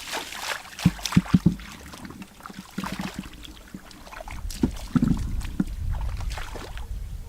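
Water sloshing and splashing as someone works by hand in shallow water, with a quick run of four dull thumps about a second in.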